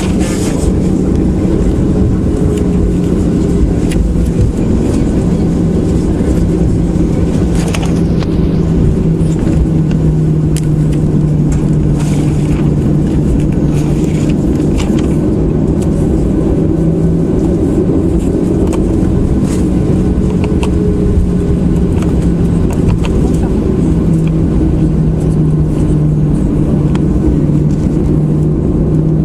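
Boeing 737-800's CFM56 jet engines running steadily: a loud, even rumble with a low hum that steps slightly up and down in pitch a few times, and a few faint clicks.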